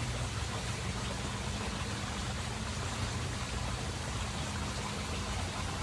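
Steady running water with an even rush and a faint low hum underneath.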